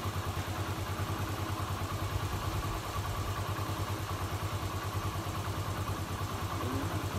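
Motorcycle engine idling steadily with an even, rapid pulse.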